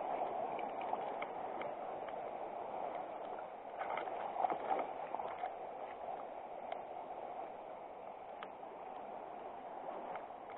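River water running steadily over stones, with scattered faint clicks and knocks on top.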